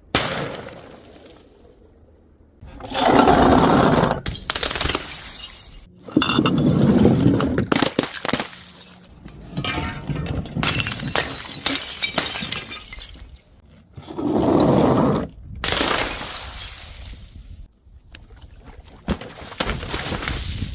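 Glass bottles shattering and being crushed: a series of sudden crashes, several of them, each trailing off into crunching glass before the next.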